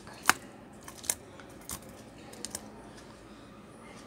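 A handful of sharp clicks and taps as a small circuit board is handled and set down on a workbench. The loudest comes about a third of a second in and a second one about a second in, with fainter ones after.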